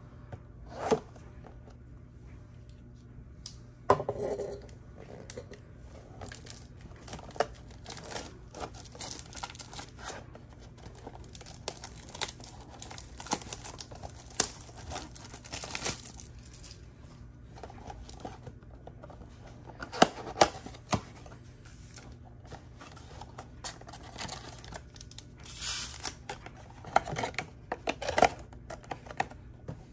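A shrink-wrapped cardboard trading-card blaster box being cut and torn open: crinkling and ripping of the plastic wrap and cardboard in stretches, with scattered sharp clicks and taps as it is handled.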